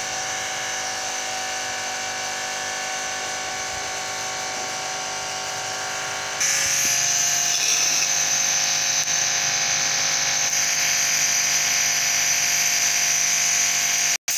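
Steady hum of a small electric motor. About six seconds in it jumps louder and takes on a brighter hiss.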